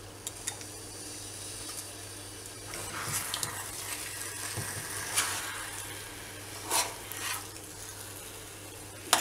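A metal spoon stirring and scraping fried cauliflower through a sticky cornflour sauce in a small stainless steel saucepan, with several sharp clinks of spoon on pan, the loudest about five and seven seconds in. The sauce is cooking on the heat until the cornflour turns transparent.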